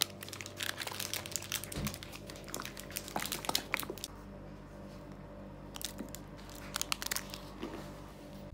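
Foil wrapper of a chocolate bar crinkling and tearing as it is opened by hand, in two bouts of crackling with a quieter stretch between.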